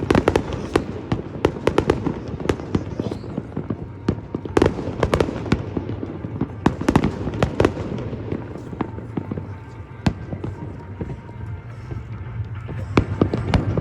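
Aerial fireworks crackling: a rapid, irregular crackle of many small bursts. It is densest at the start, again from about four to eight seconds in, and picks up once more near the end.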